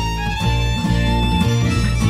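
Background music played on string instruments, with the notes changing several times a second.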